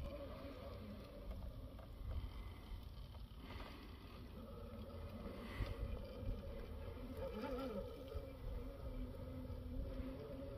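RC rock crawler's brushless motor and geartrain whining faintly at crawling speed, the pitch wavering with the throttle, over low wind rumble on the microphone.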